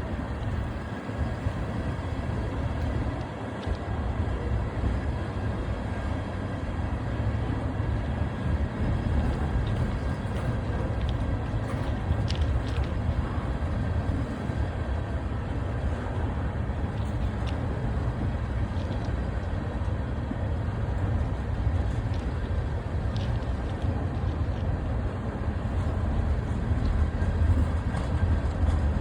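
Freight train rolling past: a steady, deep rumble of railcars on the track, with a few faint clicks.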